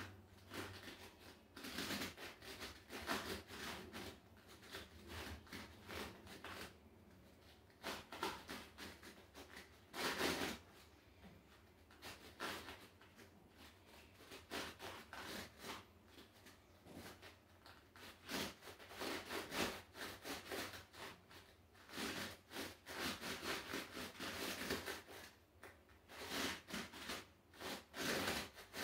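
Short, irregular rubbing and rustling noises from a person moving barefoot on an inflatable rubber balance disc, with no steady rhythm.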